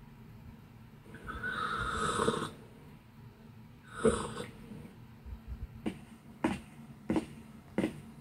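A long, loud slurp from a mug, then a shorter slurp about four seconds in. From about six seconds, evenly spaced footsteps, about three every two seconds.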